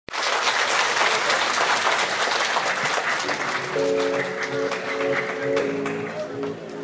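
Audience applause, dense at first and fading out over the first few seconds, as music with long held notes begins about three seconds in.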